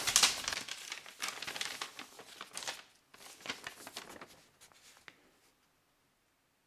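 Paper instruction sheet rustling and crinkling as it is unfolded and handled, with many small crackles that thin out and stop after about five seconds.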